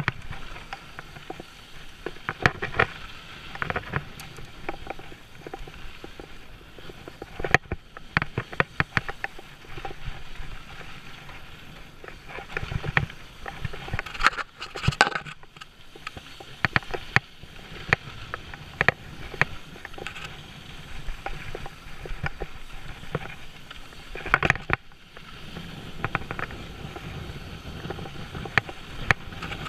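Mountain bike rattling and clattering down a rough dirt trail: tyres crunching over dirt and rocks, with many uneven clacks and knocks from the bike over bumps and a steady rush of wind noise.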